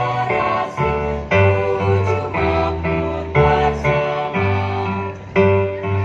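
Music led by piano or keyboard chords, struck in a steady rhythm about twice a second over a strong bass.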